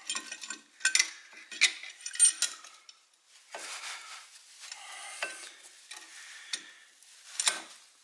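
Metal tools clinking and scraping against a brake caliper as a C-clamp is fitted to push back the caliper piston, with gloved hands rustling. There are several sharp clinks in the first few seconds, a stretch of steadier scraping in the middle, and one more clink near the end.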